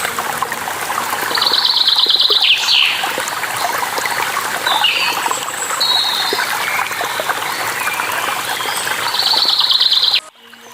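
Steady flowing water with songbirds singing over it: a couple of fast trilled phrases and several short slurred chirps. Near the end the sound cuts out suddenly and returns fainter, with a low hum.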